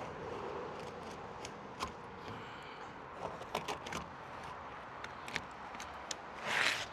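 Utility knife scoring and cutting an asphalt roofing shingle to length: small clicks and scrapes as the blade and shingle are handled, with a longer, louder scrape near the end.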